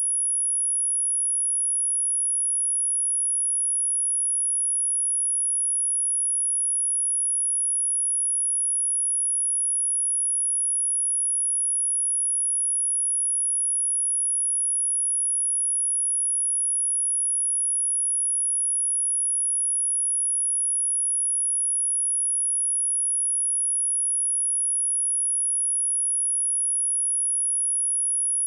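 A single pure 10313 Hz sine-wave test tone, a steady high-pitched whistle held at an even level, used to test speakers and to clear water and dust from them.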